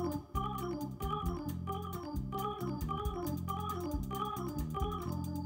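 Live instrumental band music led by an electronic keyboard with an organ sound, over electric bass and a drum kit keeping a steady rhythm.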